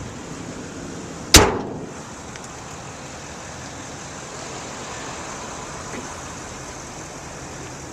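A single loud metal slam about a second and a half in, with a short ringing tail: the pickup truck's hood being shut. Steady outdoor background noise runs under it.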